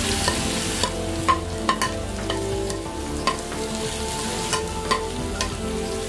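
Chopped cabbage dropped into hot oil in an earthen clay pot, sizzling loudest in the first second. A spoon stirring it in knocks and scrapes against the pot about ten times.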